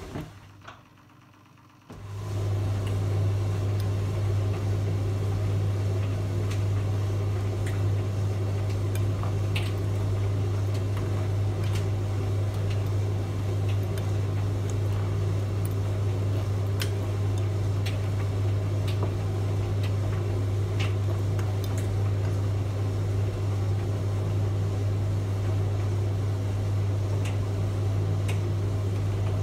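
Microwave oven starting up about two seconds in and then running with a steady low hum, with occasional light ticks over it.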